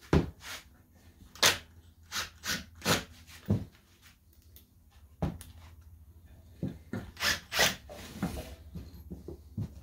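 About a dozen separate sharp clicks and knocks as screws and wooden stretcher-frame pieces are handled and a screw is fitted onto the bit of a cordless impact driver, which does not run. A brief scuffing rustle comes just after eight seconds in.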